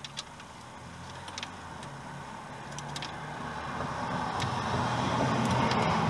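A passing road vehicle, its noise swelling steadily over several seconds and loudest near the end, with a few light metallic clicks from a wrench on the engine's oil seal housing bolts.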